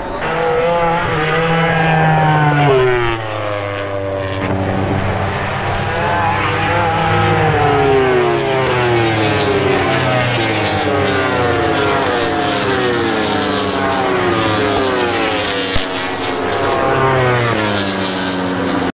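MotoGP race bikes with 1000 cc four-cylinder engines passing at speed one after another. The engine pitch climbs and drops again and again, through the gear changes and as each bike goes by.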